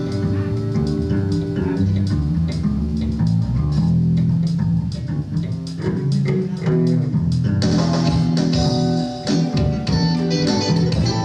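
Instrumental band music: plucked guitar and bass guitar over a drum kit, steady and loud.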